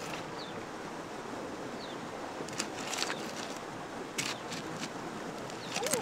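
Steady wash of flowing shallow river water, with a few brief sharp knocks about halfway through and again near the end.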